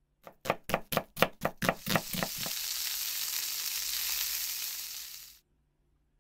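An edited sound effect: a quick run of about ten sharp ticks, about four a second, running into a steady high hiss that cuts off suddenly near the end.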